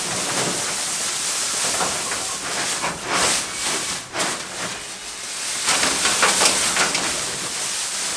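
Dry straw rustling and crackling as it is pulled apart and spread by hand for pig bedding, with louder crackly bursts about three seconds in and again in the second half.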